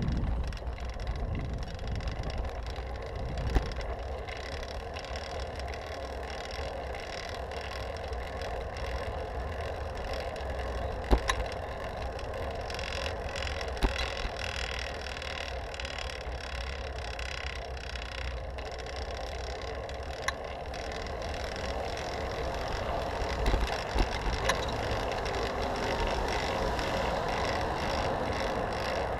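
Riding noise of a fixed-gear bicycle on asphalt, heard from a handlebar-mounted action camera: steady wind rush over the microphone with tyre and drivetrain hum, getting a little louder in the last few seconds. A few sharp knocks are heard along the way.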